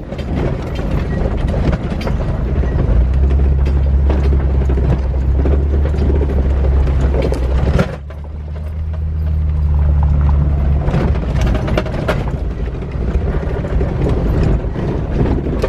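Jeep Wrangler JK engine pulling under load over a rough trail, with the body and cargo rattling and knocking. The engine swells twice, dropping off sharply about halfway through.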